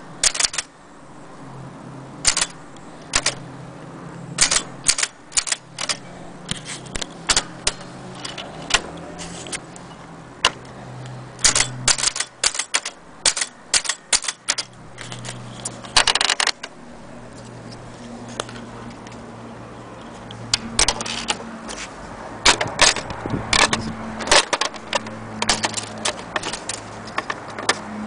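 Vintage Erika portable typewriter being typed on: irregular runs of sharp mechanical key strikes with short pauses between them.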